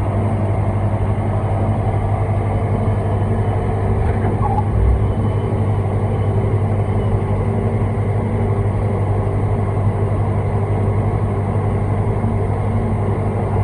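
Tractor engine running steadily under load, pulling a fertiliser spreader across a field. A constant low hum, heard from inside the cab.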